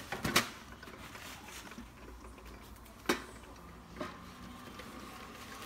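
A few sharp clicks and a softer knock from things being handled on a kitchen counter: two clicks at the start, one about three seconds in and a softer knock a second later, over a low background.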